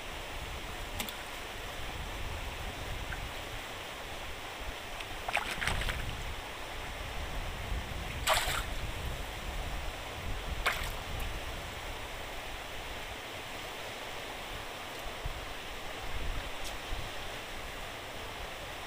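Steady rush of water pouring out of a fish-pond sluice gate, with about three short sharp sounds spread through the middle.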